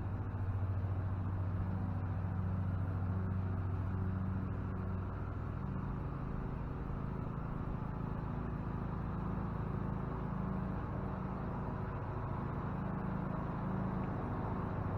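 Lawn mower engine running steadily, a low even drone with its pitch holding constant.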